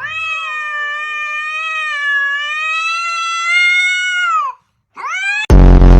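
A cat yowling: one long, wavering, drawn-out call lasting about four and a half seconds, then a short rising cry, followed near the end by a sudden, very loud harsh burst.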